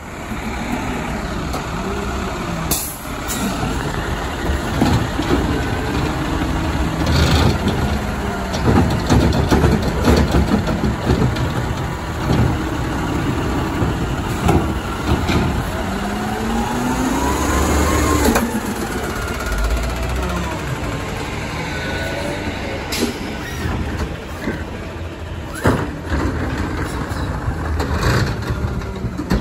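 A natural-gas Autocar garbage truck with a McNeilus ZR automated side-loader body running as it works a cart. Its engine revs up and back down in the middle while the hydraulic arm lifts, and there are several short, sharp air-brake hisses.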